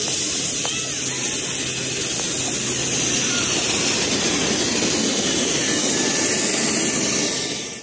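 5-inch-gauge Queensland Rail C17 live-steam model locomotive venting steam: a loud, steady hiss that cuts off at the very end.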